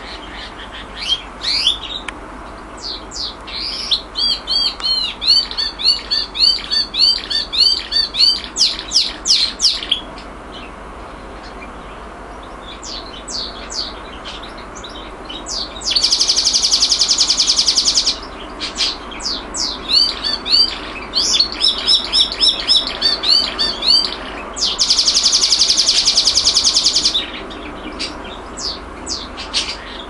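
Domestic canary singing: a run of quick rising and falling chirps and repeated phrases, broken twice by a long, very rapid rolling trill, once about halfway through and again near the end.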